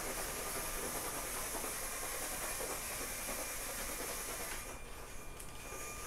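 LEGO EV3 omni-wheel robot driving across a wooden floor: its motors whirring and wheels rolling in a steady hiss-like noise that eases off briefly about five seconds in.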